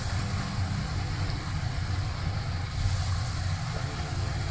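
Breaded chicken nuggets sizzling in hot oil in a wok, just added to the pan, over a steady low rumble.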